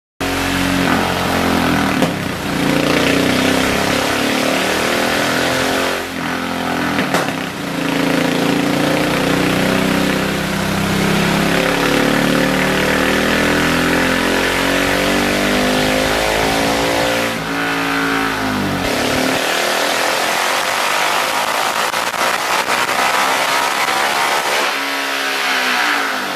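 Husqvarna 701 Supermoto's single-cylinder engine, breathing through a Wings exhaust can, on a chassis dyno run. After some uneven revving in the first few seconds, the revs climb steadily for about nine seconds in a full-throttle pull, then the throttle shuts off abruptly and the revs wind down slowly, with a short rise again near the end.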